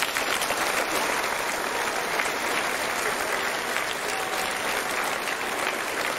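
Audience applause in a hall: many people clapping steadily.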